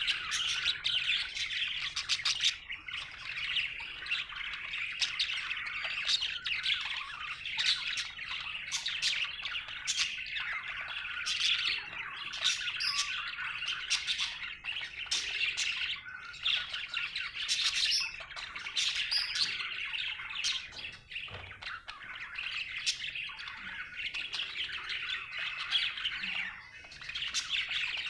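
Budgerigar chirping and chattering continuously in a stream of quick short notes, without a break. This is the chatter of a happy budgie.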